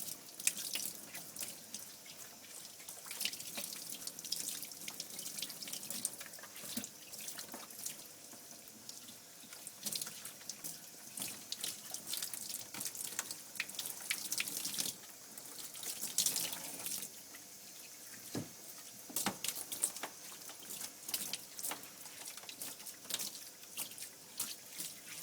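Running water splashing in a bath as shampoo is rinsed out of a dog's coat, with many irregular drips and splashes.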